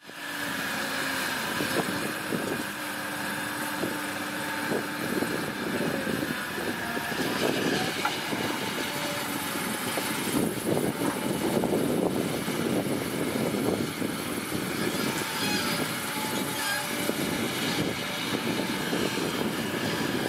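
Doosan DX225LCA crawler excavator's diesel engine running steadily under working load as it digs sand and swings the loaded bucket over a truck.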